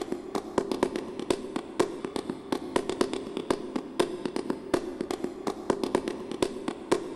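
Credits soundtrack: a dense, irregular patter of sharp crackling clicks, several a second, over a steady low drone.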